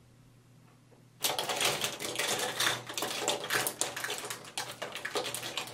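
Rummaging through makeup: small hard items rattling and knocking together in a rapid, uneven jumble of clicks that starts suddenly about a second in.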